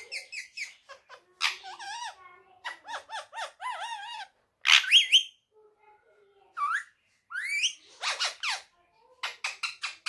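Indian ringneck parrot talking in mimicked speech-like chatter, mixed with short whistles. There is a loud sharp call about five seconds in and rising whistled glides a couple of seconds later.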